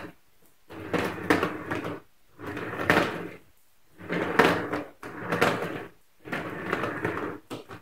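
Head of a Shark Rocket HV382 stick vacuum pushed back and forth over uneven hard floor in repeated strokes, rattling and knocking as the too-light head bounces; about five strokes, each a second or two long, with brief quiet between them.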